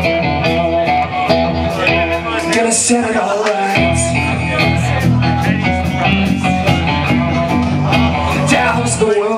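Rock band playing live, guitar-driven instrumental intro of the song with a steady beat; the low end drops out briefly about three seconds in.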